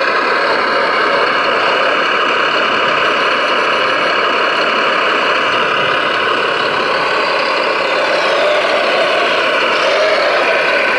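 Radio-controlled model construction machinery running: a steady mechanical whine and hum from small motors, with pitches sliding up and down about eight to ten seconds in as the motors change speed.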